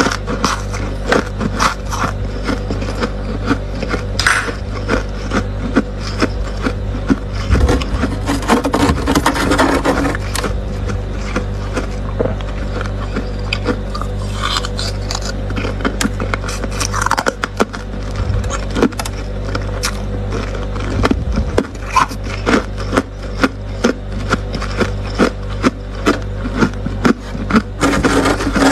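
Freezer frost being scraped and picked at: a dense run of crisp scratching clicks, busier in a few stretches, over a steady low hum.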